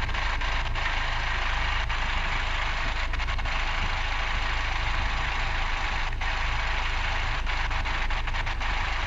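Catamaran's inboard diesel engine idling steadily, heard close up from inside the engine compartment.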